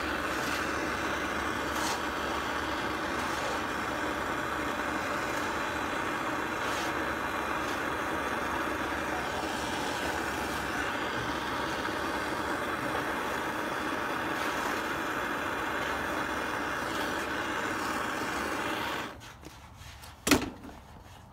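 Handheld gas soldering torch burning with a steady hiss, shut off suddenly near the end, followed by a single sharp click.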